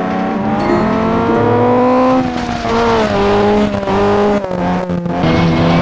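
Turbocharged Toyota Celica under hard acceleration: the engine note climbs for about two seconds, then drops and climbs again as it changes gear. About five seconds in the sound turns choppy as the throttle is lifted, with turbo flutter, then it settles into a steady pull.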